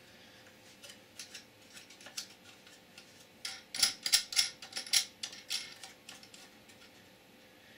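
Small hardware clicking and clinking as bolts, nuts and washers are handled and fitted onto a plexiglass-and-metal CNC slide, with a quick run of sharp clicks about halfway through.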